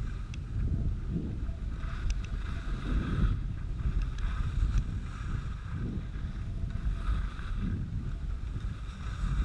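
Wind buffeting the microphone while snowboarding at speed, with the snowboard hissing over the snow in swells that come and go every second or two as it turns.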